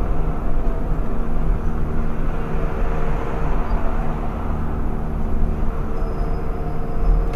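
Steady engine and tyre noise of a car driving at speed, heard from inside the cabin: a constant low rumble with a few held engine tones.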